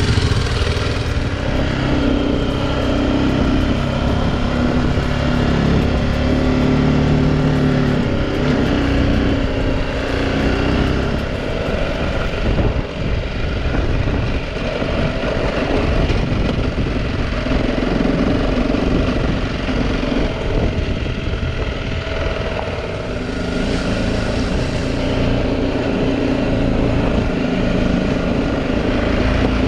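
BMW G 310 GS single-cylinder engine running as the motorcycle rides along a rough dirt track, its note rising and falling several times with throttle and gear changes, over a steady rush of wind and road noise.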